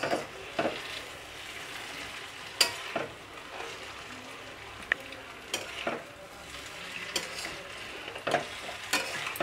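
Noodles being stir-fried in a metal kadai: a steady sizzle, broken by scattered sharp clicks and scrapes of a metal spatula against the pan as the noodles are tossed.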